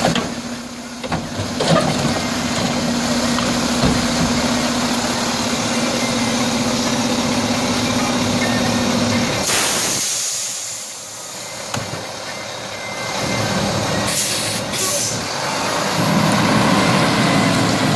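Mack LEU garbage truck idling with a steady hum that stops about nine seconds in, when a loud air hiss from the truck's air system bursts out and fades over about a second. Two short air hisses follow around 14 to 15 seconds in, and the engine runs louder near the end.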